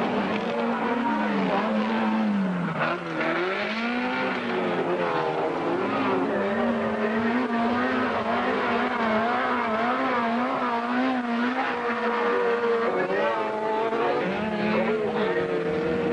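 Autocross race car engines revving hard on a dirt track, the pitch climbing and dropping over and over with throttle and gear changes.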